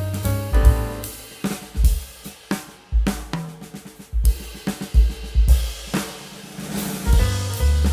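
Background music with a drum kit: kick, snare and cymbal hits over sustained pitched notes.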